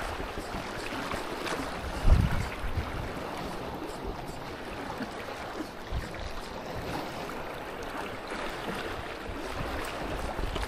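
Strong wind of about 18 knots buffeting the microphone: a steady rush with low rumbling gusts, the heaviest about two seconds in.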